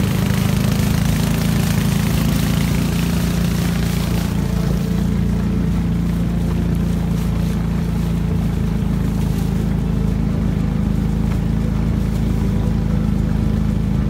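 Small wooden boat's engine running steadily under way, with the rush of water and wind; the hiss of spray and wind eases about four seconds in.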